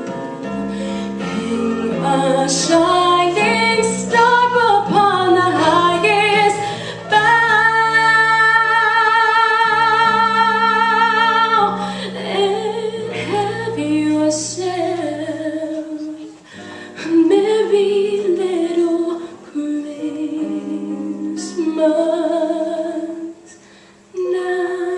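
Female vocal quartet singing in harmony over instrumental backing, with long held notes and vibrato about a third of the way in; no words can be made out.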